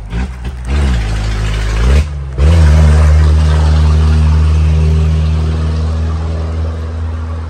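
An engine revs up twice in quick succession, the second time about two seconds in, then runs loud and steady, easing off slowly.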